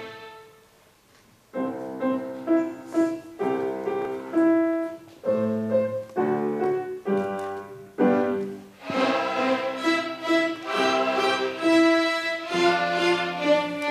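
Children's string ensemble of violins playing with piano accompaniment. After a short pause at the start, bowed phrases resume, growing fuller and louder from about nine seconds in.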